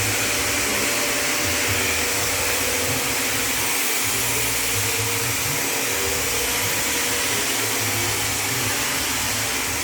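A machine running steadily, giving a loud, even whooshing hiss over a wavering low hum.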